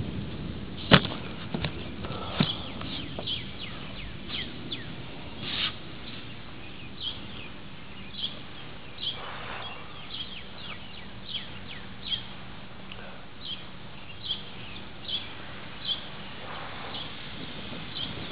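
A bird calling over and over, short high chirps that fall in pitch, one every second or so. A sharp tick sounds about a second in and another near two and a half seconds.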